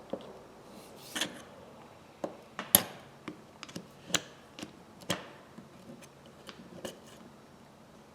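Steel screwdriver tips clicking and scraping against a pipe wrench's spring and clip while the spring is pressed down and the clip pushed in: a string of sharp metal clicks, the loudest about a third of the way in, growing sparser and fainter after the middle.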